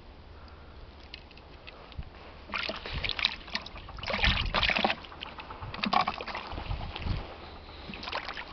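Water splashing and sloshing in a few short bursts, the loudest about four seconds in, as small bait fish and water are tipped from a container into a plastic bucket.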